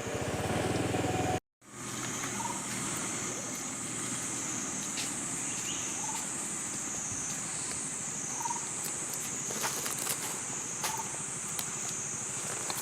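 A steady low hum that cuts off suddenly about a second and a half in. After that comes a forest insect chorus, a shrill drone that wavers slowly in pitch, with short faint chirping calls about every two to three seconds.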